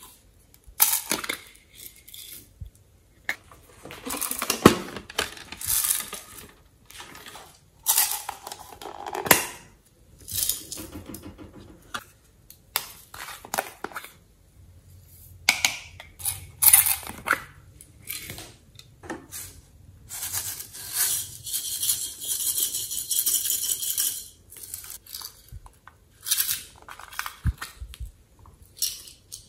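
Small plastic containers of slime ingredients being handled: sequins and glitter tipped into a glass dish, a plastic tub squeezed, and a plastic case prised open. The result is irregular taps, clicks and crinkling, with a longer stretch of crinkling about two-thirds of the way through.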